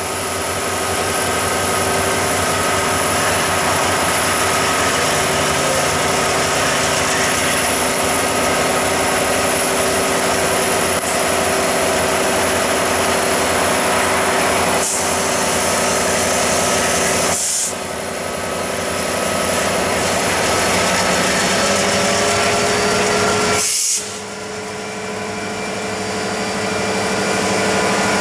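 Diesel freight locomotives led by an EMD SD70ACe running as they approach and pass close by, a steady engine drone with a high whine over the rumble of the train, growing louder over the first few seconds. The sound dips sharply twice, about two-thirds of the way through and again near the end, then recovers.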